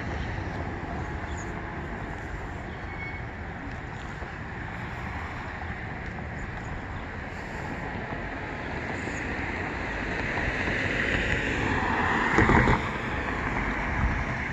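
Outdoor street ambience: wind on the microphone over a steady rumble of road traffic, swelling to the rush of a passing vehicle about ten to thirteen seconds in. A thump near the peak, and another near the end.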